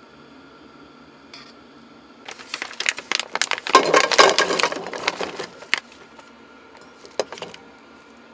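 Close handling noise: a few seconds of rustling and clinking, loudest in the middle, then a couple of light clicks, over a faint steady hum.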